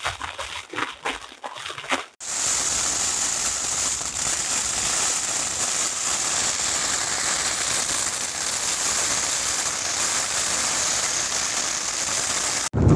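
Heavy rain falling steadily on a Zpacks Duplex tent's Dyneema fly, heard from inside the tent. Before that, in the first two seconds, there are short rustles and crinkles of gear and plastic bags being handled.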